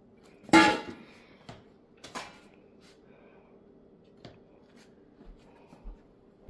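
Empty stainless steel bowl set down on a kitchen counter with one loud metallic clank about half a second in, followed by a few lighter knocks and clinks.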